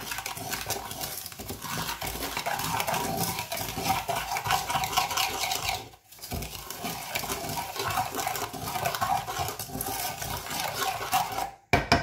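Wooden spatula stirring and scraping wet sugar around a small stainless-steel saucepan, a continuous irregular gritty scrape against the metal, with a brief break about halfway.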